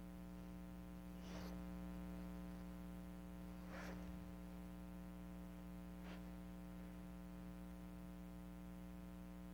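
Faint, steady electrical hum with a buzzy edge, with three brief soft rustles about a second and a half, four and six seconds in.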